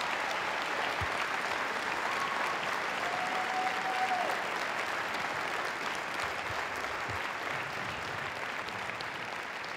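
Crowd in a gymnasium's bleachers applauding, a steady round of clapping that eases slightly toward the end.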